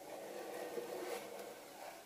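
Hands picking up and handling a box of photographic paper: a scraping, rustling handling noise that starts suddenly, is loudest about a second in and eases off toward the end.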